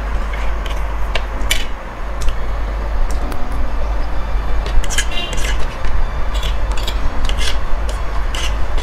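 Fork and spoon scraping and clinking irregularly against a ceramic plate as chow mein noodles are gathered, over a steady low hum.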